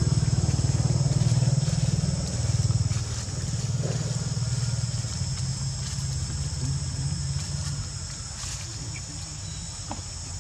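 A motor engine's low, pulsing drone, loudest at the start and fading away over several seconds, under a steady high-pitched buzz of insects.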